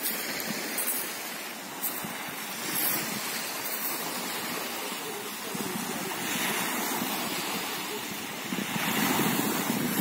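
Small waves of the Sea of Azov lapping and breaking on a sandy shore, with wind noise on the microphone. The surf swells louder near the end.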